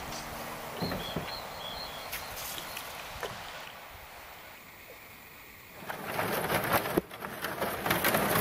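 Canoe paddling on still water with faint paddle knocks and a small bird calling a few short high notes about a second in. From about six seconds in, a much louder dense crackling and splashing sets in as the aluminium canoe and paddle break through thin ice.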